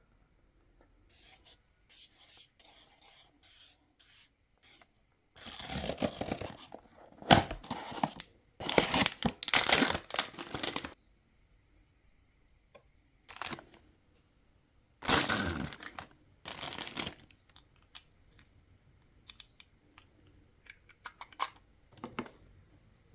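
Blind-box packaging being torn open by hand: a series of short rips, then several louder spells of tearing and crinkling, with a few light handling sounds near the end.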